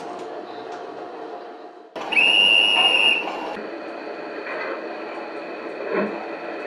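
Model freight wagons rolling steadily along the track. About two seconds in, a Gauge 1 model steam locomotive's sound unit gives one loud whistle blast of about a second and a half, followed by a few slow chuffs.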